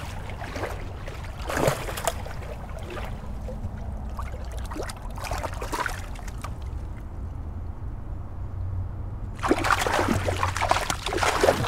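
Water splashing in the shallows as a hooked coho salmon is grabbed by hand, in scattered splashes with a louder, busier run of splashing near the end. A low steady rumble lies underneath.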